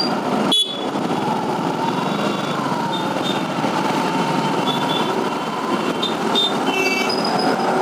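Steady engine and traffic drone in dense city traffic heard from a motorcycle, with a city bus running right alongside. A faint wavering whine runs through it, with a few short high-pitched peeps.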